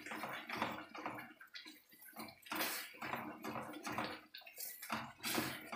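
A spoon stirring thick, moist sweet-potato halwa in an iron kadhai, scraping the pan and working through the wet mixture. The strokes are repeated and irregular, about one or two a second.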